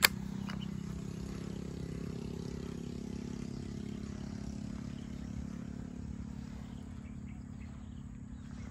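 A low, steady engine hum that slowly fades, with one sharp click right at the start.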